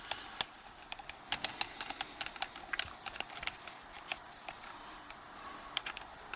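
Light, irregular metal clicks and taps from a Yale 850 padlock and its small parts being handled and set down during disassembly.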